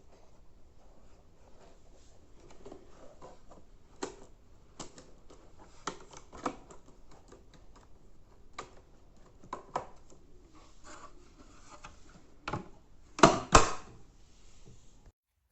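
Scattered sharp clicks and knocks, about a dozen, spread irregularly with a faint background between them; the two loudest come close together near the end.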